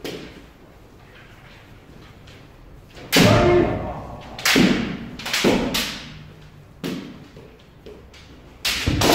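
Kendo sparring: bamboo shinai strikes and stamping footwork, four sharp cracks in quick succession starting about three seconds in, ringing in a large hall. A long shout with falling pitch starts near the end, typical of a kendo kiai.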